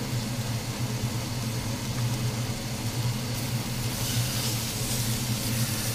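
Raw bacon sizzling as it is laid into hot oil in a steel wok. The sizzle grows from about three seconds in, over a steady low mechanical hum.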